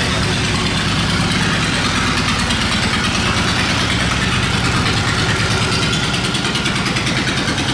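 Boat engine running steadily with a fast, even chug.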